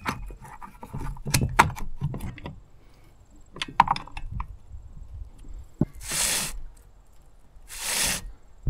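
Small metal clicks, clinks and knocks of hand tools and the chainsaw's side cover and bar nuts being worked, followed by two short hisses, each about half a second, near the end.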